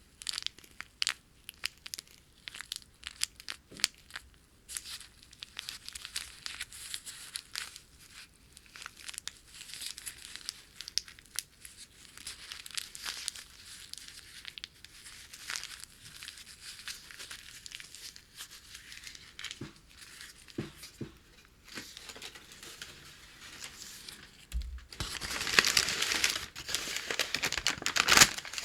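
Packing paper handled by hands: crinkling and crackling with soft tearing, in scattered crisp crackles, turning into louder, denser crinkling near the end.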